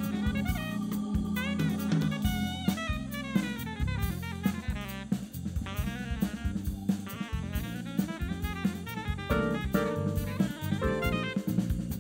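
Small jazz band playing live: a drum kit keeping a busy groove under electric bass, saxophone and electric keyboard, with fast melodic runs rising and falling through the middle.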